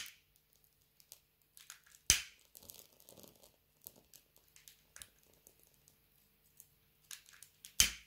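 Dried bay leaf crackling as it burns, with scattered faint ticks and two louder sharp cracks, one about two seconds in and one near the end.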